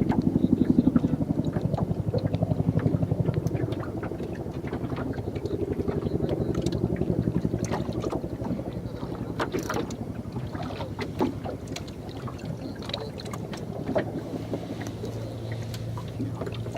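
A boat's engine runs steadily at low revs, with a few sharp knocks and clicks from gear in the boat.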